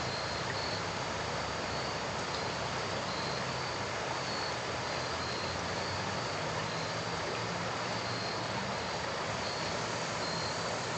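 Steady rushing of a fast, choppy river current, with insects chirping now and then at a high pitch and a low hum underneath.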